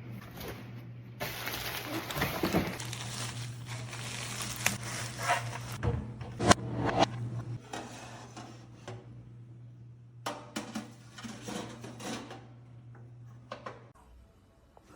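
Our Place Wonder Oven running on its air-fry setting with a steady low hum, under clattering and rustling from handling, and the hum stops near the end.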